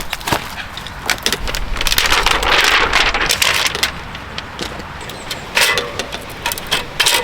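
Rustling and crinkling of packaging being pulled off a new mountain bike, with scattered clicks and knocks from handling parts; the rustling swells about two to three seconds in.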